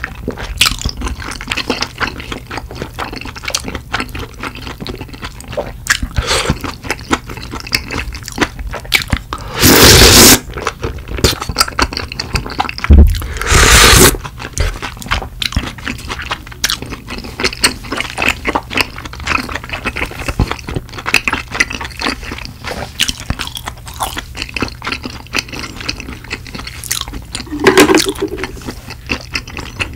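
Close-miked chewing of spicy tteokbokki rice cakes, with many small wet mouth clicks. Two loud slurps about ten and thirteen seconds in as he drinks sauce from a ladle.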